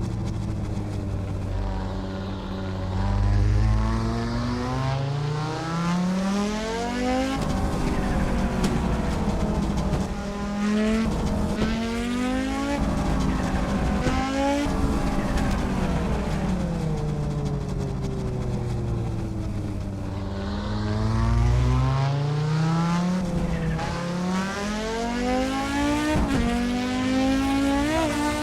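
Audi Sport quattro S1's turbocharged five-cylinder engine under hard acceleration. Its pitch climbs and drops sharply at each upshift, several times in quick succession. Around the middle it falls away as the car slows, then climbs again through the gears.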